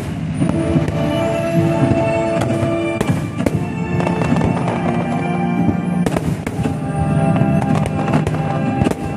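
Aerial fireworks shells bursting in a rapid string of bangs, thickest about three and six seconds in, over music with long held notes.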